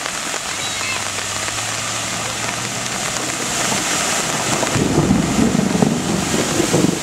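A Jeep Grand Cherokee ploughs through deep floodwater on a street, its engine running under a steady hiss of spray and splashing. The wash grows louder and rougher about two-thirds of the way in as the vehicle's bow wave comes close.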